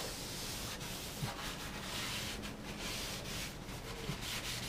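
Paper towel rubbing and wiping wet wood stain on the mahogany trim of a wooden wheelhouse, in repeated uneven hissing strokes.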